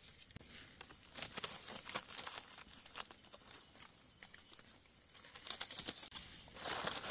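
Irregular rustling, crinkling and small snapping of forest-floor litter as hands work through it picking mushrooms, growing louder near the end.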